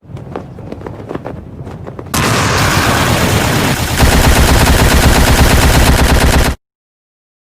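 Rapid-fire barrage of anime hit sound effects, like machine-gun fire: faint quick ticks at first, then a loud, dense run of hits from about two seconds in that grows louder and cuts off abruptly.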